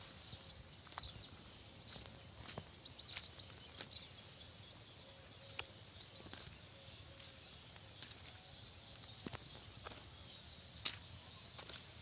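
Small birds chirping in quick high trills: one run about two seconds in and another from about eight to ten seconds. A few faint sharp clicks sit over a low outdoor background noise.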